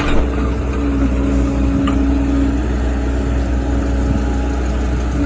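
An engine running steadily: a low, constant drone with a humming tone on top that is strongest for the first couple of seconds, and a light click about two seconds in.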